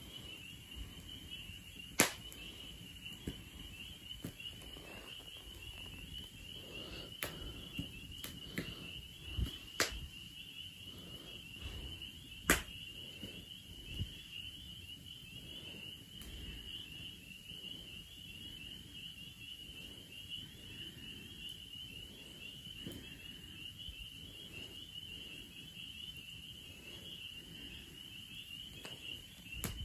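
Wood fire in a metal fire ring crackling, with sharp pops at irregular intervals, the loudest about two seconds in and again a little after twelve seconds. A steady high insect trill, like crickets, goes on behind it.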